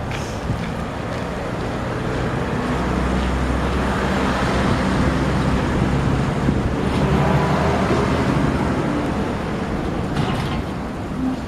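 A motor vehicle passing on a road: its engine and tyre noise swells over several seconds and fades away near the end.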